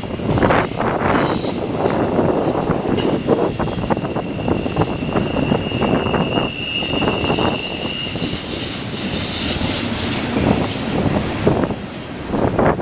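Train rolling past with its wheels squealing on the rails: a steady high squeal from about three seconds in, then higher squeals a few seconds later, over the rumble of the cars. Wind buffets the microphone.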